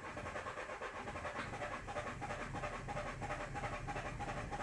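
Renault 1.5 dCi K9K four-cylinder diesel cranking on the starter motor without firing, with a steady rhythmic churn of about six compression pulses a second. It will not start because ball bearings left in the fuel rail after a test are blocking the fuel.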